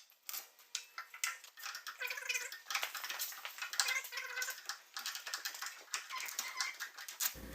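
Sped-up, pitched-up sound of disassembly work on a grinder mixer: a rapid, thin jumble of sharp clicks and metallic clatter with no low end.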